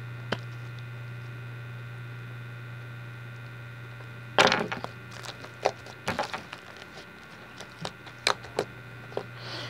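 Glitter slime being kneaded and squeezed by hand: from about four seconds in, a run of irregular sharp clicks and pops, over a steady electrical hum.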